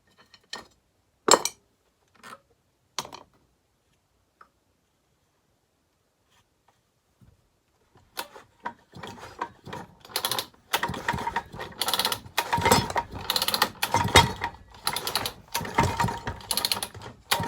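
Homelite XL-12 chainsaw's recoil starter pulled repeatedly, a rattly ratcheting burst with each pull, cranking the two-stroke engine without it firing to see whether it draws fuel. A few single clicks come first, then a pause before the pulls start about eight seconds in.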